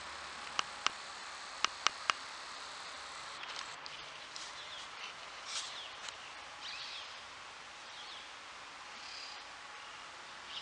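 Small birds chirping faintly, with a run of short, high twittering calls in the middle, over a steady outdoor hiss. A few sharp clicks come in the first two seconds.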